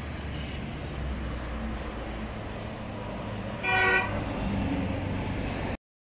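Road traffic running with a steady low rumble; a little past halfway a vehicle horn gives one short toot.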